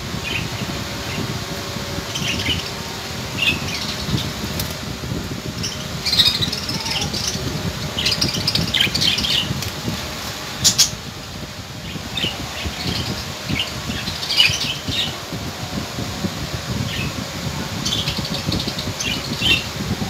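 A caged flock of budgerigars chirping and chattering in many short overlapping calls, over a steady low rumbling background noise.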